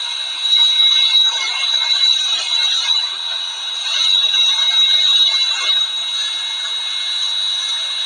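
Sukhoi Su-30MKI fighter jet running on the ground: a steady high turbine whine over a continuous rushing hiss.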